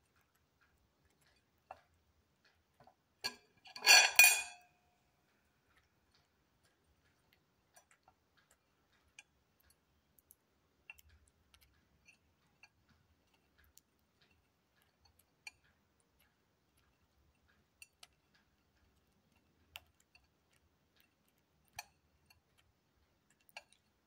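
Small white parrot pecking at crumbs on a china plate: scattered light taps of its beak on the ceramic, with one short, loud clatter about four seconds in as the metal fork lying on the plate is knocked.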